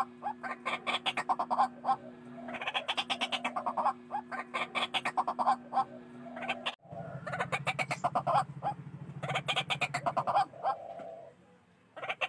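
White-breasted waterhens calling in a noisy, rapid series of repeated croaking notes, in bursts of two to three seconds, played as a lure call for trapping the bird. The recording cuts abruptly about seven seconds in, and the calls stop about a second before the end.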